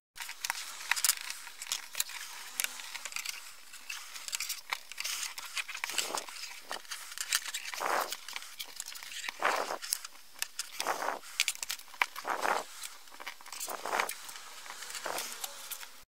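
Hands bending a fabric-covered wire over a sheet of paper: irregular rustling, crackling and small clicks of cord and wire on paper, with several louder scrapes in the middle.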